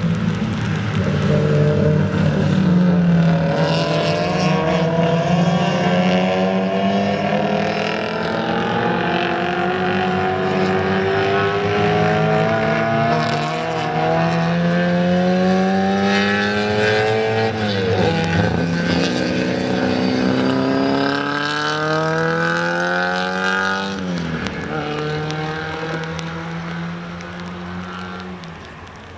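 Several classic Mini race cars with BMC A-series engines accelerating hard through the bends. The engine note climbs steadily with the revs and drops sharply twice in the second half as they shift up, then fades as the cars pull away.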